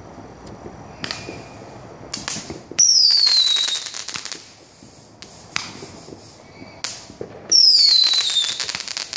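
Fireworks going off: several sharp bangs, and twice a loud whistle falling in pitch with dense crackling through it, about three seconds in and again near the end.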